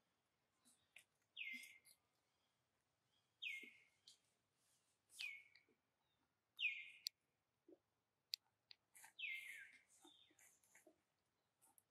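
Baby macaque crying: a short, high, falling squeal repeated five times, about every one and a half to two seconds, with a sharp click or two in between.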